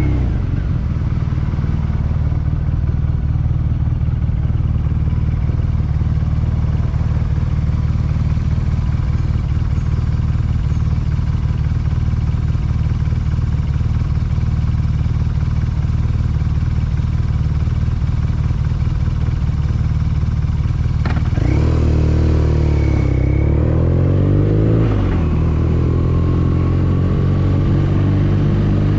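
2014 BMW R nineT's air/oil-cooled boxer twin running steadily at low revs. About twenty seconds in, the revs rise and fall through gear changes as the bike pulls away.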